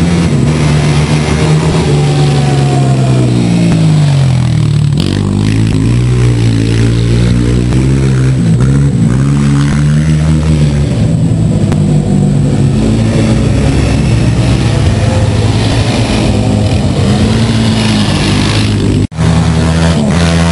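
Sport quad (ATV) engines racing, rising and falling in pitch as the riders rev and shift. The sound drops out for an instant near the end.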